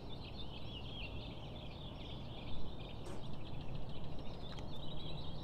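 Many birds chirping at once in a dense, continuous chatter, over a low steady rumble.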